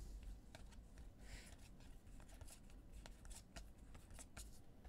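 Faint handling of football trading cards: soft, irregular clicks and slides as cards are flipped through one at a time.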